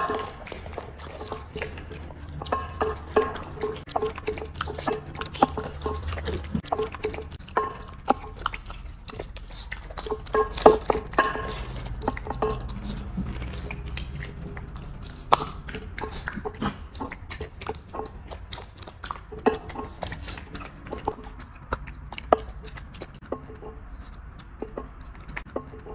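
Puppies eating wet, soupy food from a dish: wet chewing and lapping, heard as quick smacking clicks that come in runs of several a second.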